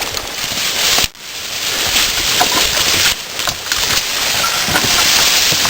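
Rough, loud hiss of wind on the microphone, shot through with many small crackles and clicks, with a sudden brief dip about a second in.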